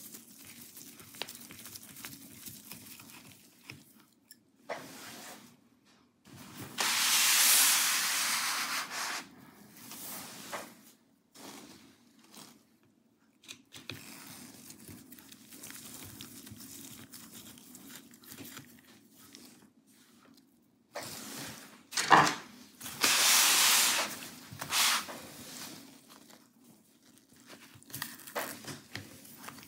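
Gloved hands and a small screwdriver working a laptop's battery out of its chassis: scraping, rubbing handling noise, loudest in two longer bouts about seven seconds in and again around twenty-three seconds, with a sharp click just before the second bout.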